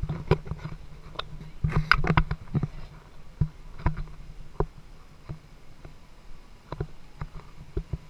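Handheld camera carried at a walking pace: irregular knocks and thumps about every half second, from footsteps and the holder's grip on the camera, over a low handling rumble.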